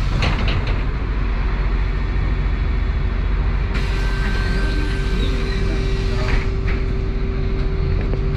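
Interior of a MAZ-103 city bus standing still with its engine idling: a steady low rumble. A car hisses past on the wet road about four seconds in.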